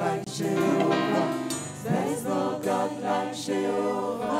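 Live gospel praise music: a woman lead singer and a choir singing over a band.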